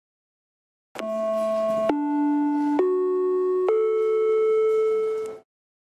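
A four-note chime, each note ringing clearly for about a second. After the first, the notes step upward, and the last is held longest before it cuts off abruptly.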